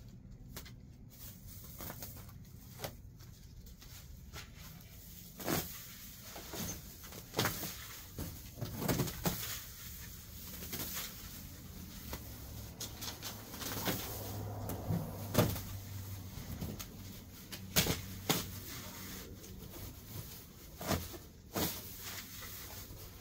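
Scattered rustling, crackling and light knocks of dry grass and weeds being pulled up and handled by gloved hands.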